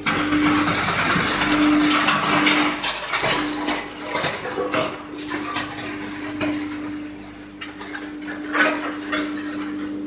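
Pallet wood chipper-shredder running: a steady machine hum with dense rattling for the first few seconds, then scattered knocks and clatter, the sharpest near the end.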